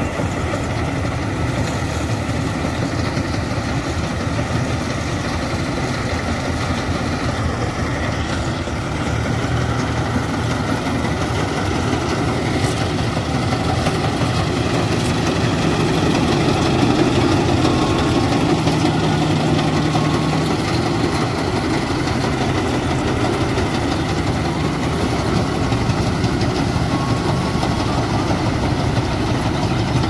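Tractor-mounted maize harvester working a corn field: a John Deere tractor engine drives a Standard TSC-513 harvester's threshing machinery with a steady running hum. It grows louder partway through as the machine comes close.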